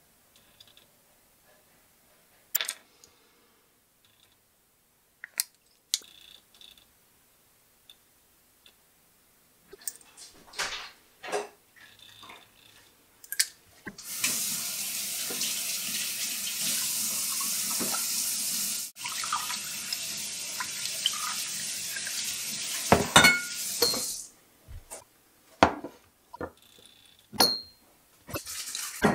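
Kitchen tap running for about ten seconds, filling a container, with a short break partway. Before and after it, scattered clinks and knocks of small glasses and bottles set down on a countertop, a few of them ringing briefly.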